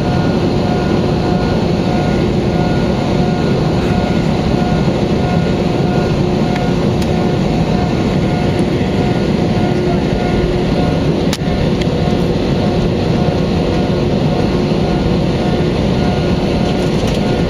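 Airbus A320neo's Pratt & Whitney geared turbofan engines heard from inside the cabin: a loud, steady rushing noise with a low rumble and a constant hum of a few steady tones. A single short click sounds about eleven seconds in.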